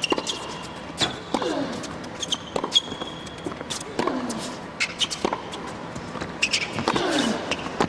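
Tennis rally on an indoor hard court: racket strikes on the ball about every second to second and a half, each followed by a short falling grunt from the hitting player, with brief shoe squeaks on the court.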